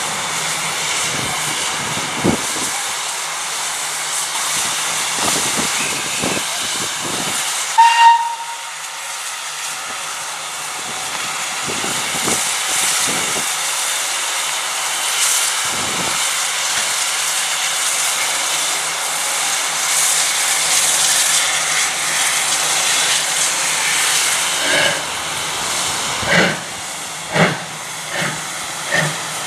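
Steam locomotive standing with a steady hiss of steam, giving one short whistle blast about eight seconds in. Near the end it starts away, with slow, evenly spaced exhaust beats about a second apart and steam hissing from its open cylinder drain cocks.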